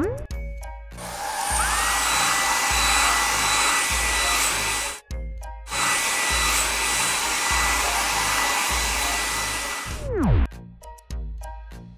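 Cartoon air-dryer blower sound effect: a steady rush of blowing air with a thin whistle-like tone over it, in two stretches with a brief break about five seconds in. A quick rising glide comes before it and a falling glide near the end, over a soft background music beat.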